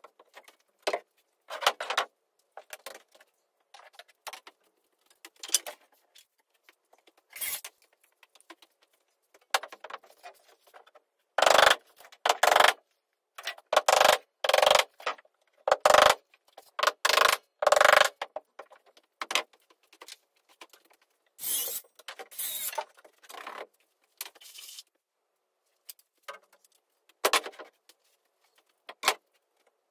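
Irregular knocks, clatters and scraping of hands-on framing work with wooden boards and tools. Several louder thuds come in the middle.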